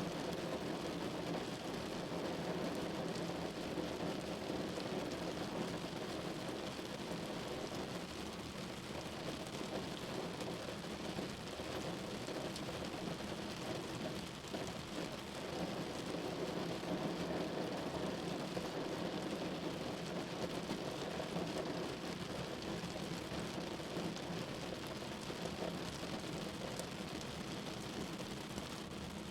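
Rain falling steadily: a continuous, even hiss with no breaks.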